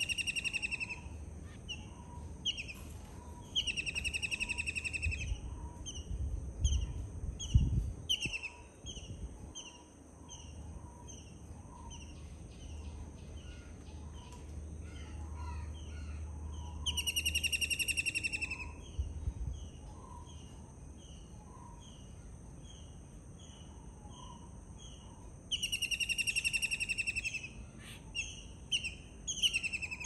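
Kingfisher calling: four loud, rapid rattling trills of about a second and a half each, with short single notes repeated about twice a second between them. A few low thumps sound about seven to eight seconds in, over a low background rumble.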